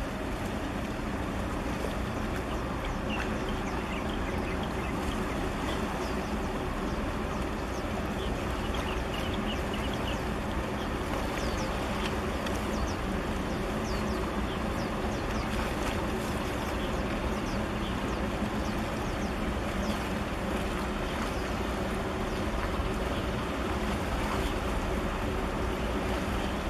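Steady low engine drone of a large ship and its escort tug passing close by, over a wash of wind and water noise. Faint high chirps come and go about a third of the way in.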